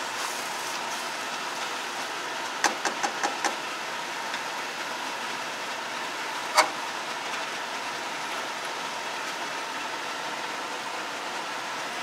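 Steady hiss of a gas burner under a pot of frying curry paste. A quick run of five light knocks comes about two and a half seconds in, and one sharp knock about six and a half seconds in, as a wooden spatula hits the metal pot.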